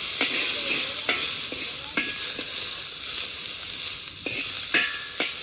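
Hot oil sizzling steadily in a wok, with a metal spatula scraping and knocking against the pan a few times.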